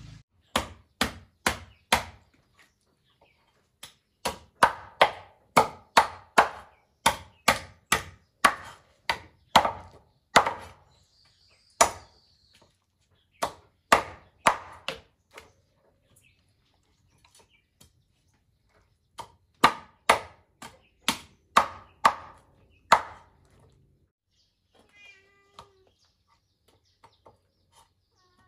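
Knife chopping fish on a wooden cutting board: sharp chops at about two a second, in several runs with pauses between them.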